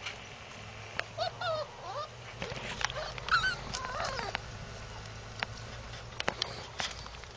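Puppy whimpering: a run of short, high, wavering whines about a second in, lasting some three seconds, followed by a few sharp clicks near the end.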